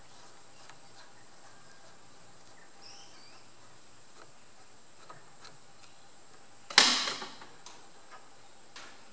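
Faint clicks of a screwdriver turning out the backing-plate screws of a tractor engine oil pump held in a steel vise, then one sharp metallic clank with a brief ring about seven seconds in.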